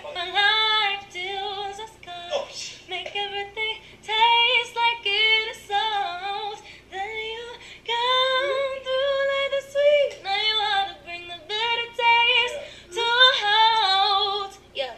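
A woman's voice singing a slow melody in drawn-out phrases with almost no audible backing, including one long held note near the middle.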